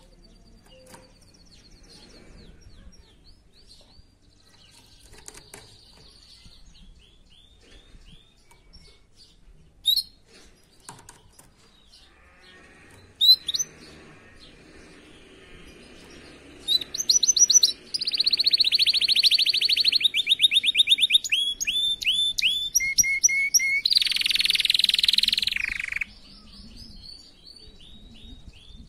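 Domestic canary singing. It starts with soft, scattered twitters, and past the halfway mark breaks into a loud song of fast, high trills of rapidly repeated notes. Near the end comes a harsher rolled trill before it drops back to soft twitters.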